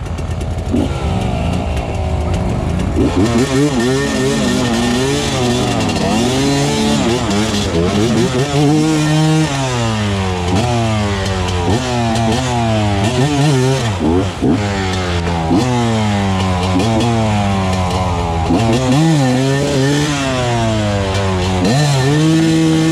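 Dirt bike engine revving up and down again and again, the throttle opened and closed every second or two as the bike works through a deep muddy rut.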